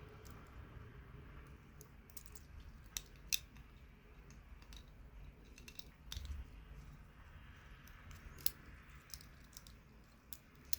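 Scattered, irregular sharp clicks and light taps of small hard objects being handled, the loudest a little over three seconds in and again past eight seconds, over a faint low rumble.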